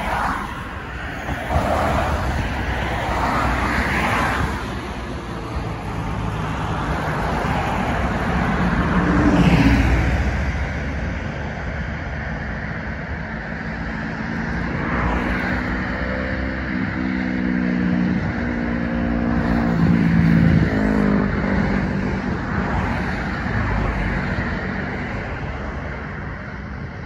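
Piper PA-28-181 Archer III's four-cylinder Lycoming O-360 engine and propeller droning as the light plane flies low on approach to land, swelling and easing as it goes by, with a steady rush of wind on the microphone.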